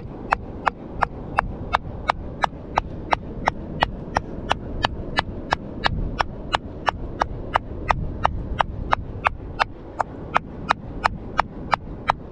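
Claw hammer tapping steadily on a large soft-stone nodule, about three light strikes a second, working to crack it open to get at the ammonite inside.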